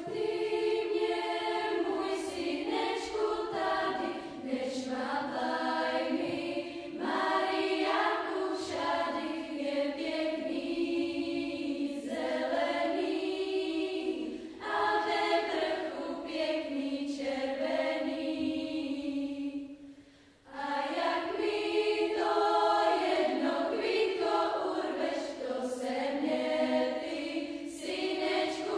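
Youth choir of mostly girls' voices singing under a conductor, sustained chords with a short breath-pause about two-thirds of the way through before they sing on.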